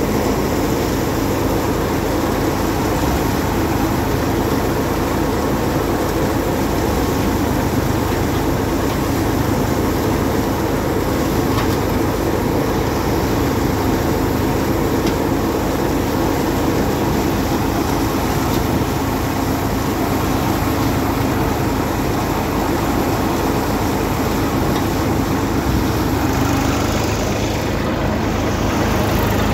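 Tractor-driven Samrat thresher running while crop is fed into its hopper: a loud, steady mechanical drone of the tractor engine and the spinning threshing drum.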